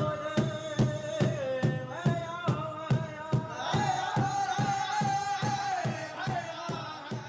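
Powwow drum song: a big drum struck in a steady beat, about two and a half strokes a second, under high, held singing voices that step down in pitch. The music fades out near the end.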